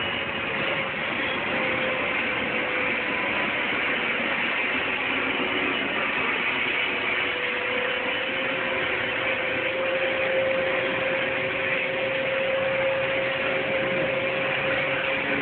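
Beriev Be-200 amphibious jet taxiing, its two D-436TP turbofans giving a steady rushing whine. A held tone in the whine grows stronger and edges up slightly about halfway through.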